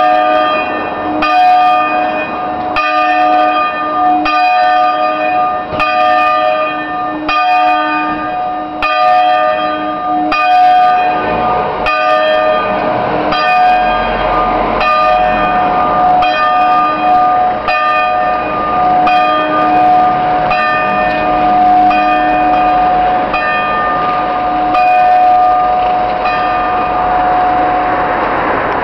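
Three swinging church bells, a peal in C4, ringing together: strokes come about every three quarters of a second over a continuous ring. This is the ringing signal that calls to the weekday Mass.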